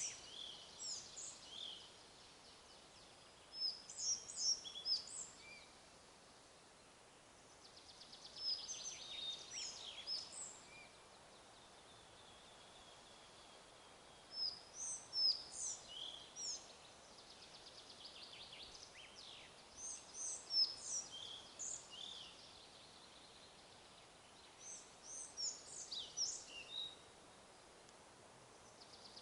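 Small songbirds singing: short phrases of high chirps and trills that come and go every few seconds, over a faint steady background hiss.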